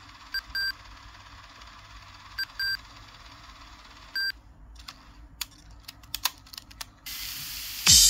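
Sony Walkman cassette player in pause search: short high beeps come in pairs about every two seconds while it fast-forwards looking for the gap between tracks. After that comes a run of light clicks, then tape hiss, and music starts near the end as playback resumes.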